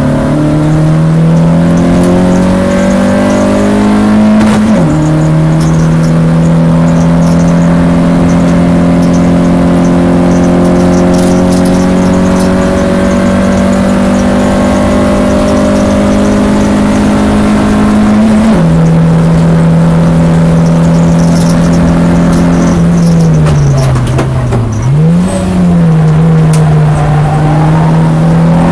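Citroën Saxo VTS 8V Copa race car's four-cylinder engine at full throttle on track. The revs climb and drop sharply at an upshift about five seconds in, then climb slowly to a second upshift about eighteen seconds in. Near the end the pitch falls under braking, gets a quick blip on a downshift, and rises again as the car accelerates.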